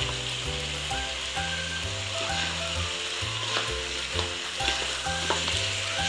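Chicken wings in spice paste sizzling steadily in hot oil in a wok, with a spatula stirring and scraping against the pan. Background music with a stepping bass line plays underneath.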